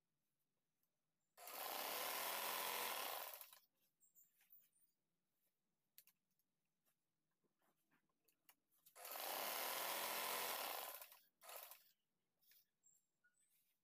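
Sewing machine running in two bursts of about two seconds each, with a short third burst just after the second, as it stitches an elastic waistband that is stretched under the foot. Between the bursts, fabric rustles and small clicks.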